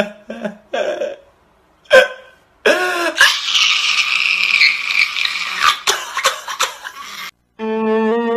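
A man crying: short sobbing gasps in the first second, then a loud, long, strained wail lasting about four seconds that cuts off abruptly. Music with steady plucked or bowed notes starts just before the end.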